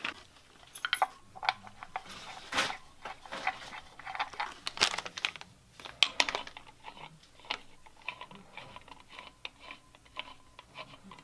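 Socket wrench ratcheting a knock sensor down into the valley cover of a 5.3 LS V8 with a 7/8 socket on an extension. Irregular runs of sharp clicks, with some tool clatter.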